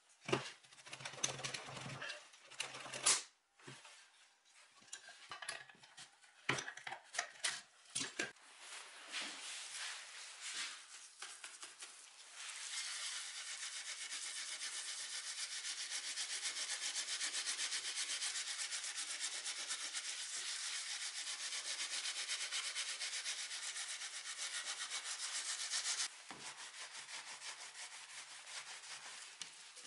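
Wooden chair parts knocked and clattered on a workbench for the first several seconds. From about twelve seconds in, a cloth pad is scrubbed rapidly and steadily back and forth over a wooden chair back, getting quieter a few seconds before the end.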